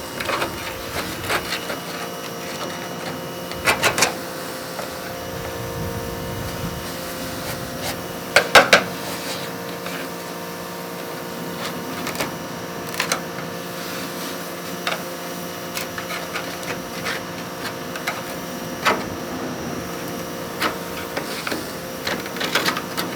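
Workshop work sounds: a steady machine hum holding several fixed tones, with scattered clicks and knocks from hand-tool work. The loudest knocks come in quick clusters about four seconds in and again around eight and a half seconds.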